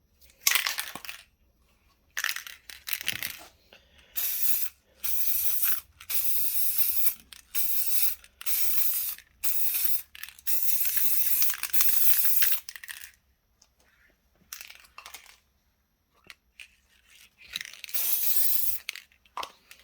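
Aerosol can of peelable plastic dip spraying in a run of short hissing bursts, with one more burst near the end.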